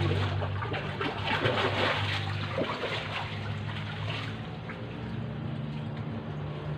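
Water trickling and splashing, over a low steady hum.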